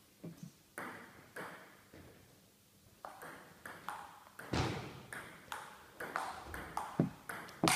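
Table tennis rally: the ball clicking sharply off the rubber bats and the table in quick alternation, with the clicks echoing around a large hall. A few slower bounces come first, then the exchange speeds up to about two hits a second from about three seconds in, the hardest hits with a dull thud under the click.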